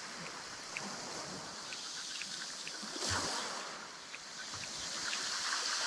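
Waves washing on the shore and wind on the microphone, a steady rush that swells about three seconds in and again near the end, with a few faint small ticks.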